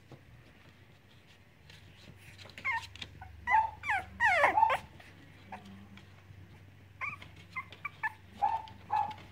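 Cavalier King Charles Spaniel puppies yipping and whining in high-pitched calls, starting about two and a half seconds in. The loudest cluster of yelps comes a few seconds in, followed by a run of short yips near the end.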